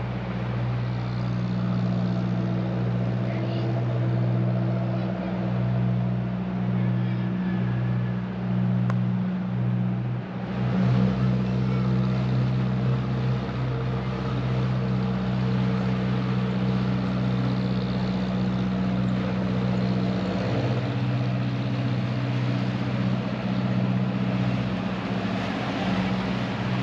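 Engine of a small passenger ferry running steadily with a low hum, joined by more hiss about ten seconds in.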